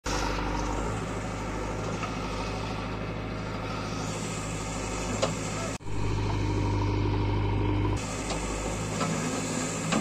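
JCB 3DX backhoe loader's diesel engine running steadily, with a few light knocks. The sound drops out briefly a little past halfway.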